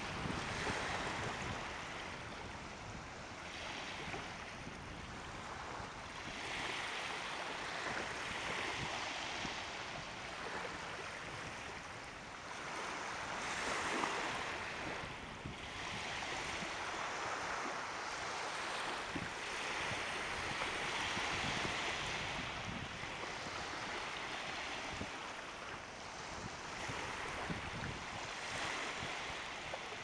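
Ocean surf at low tide: small waves breaking and washing up a flat sandy beach, a continuous hiss that swells and eases every few seconds.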